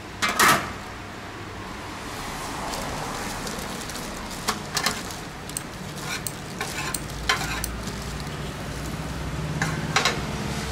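Cooking clatter: sharp clinks and knocks of metal utensils against pots and a metal tray, the loudest about half a second in, with more scattered through, over a steady hiss.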